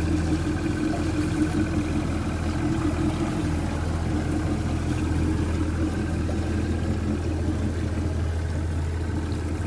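Boat's outboard motor running steadily while under way, a constant engine drone that does not change in pitch.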